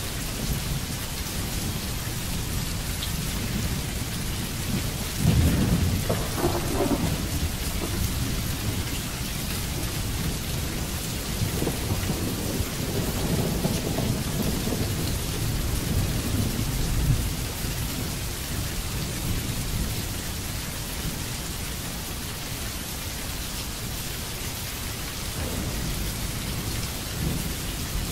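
Steady rain falling, with rolling thunder: a rumble that swells suddenly about five seconds in, then a longer, lower rumble that dies away a little past halfway.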